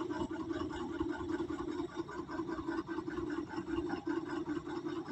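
Tipper truck's diesel engine running steadily with a fast, even pulse while its hydraulic tipping body is being lowered.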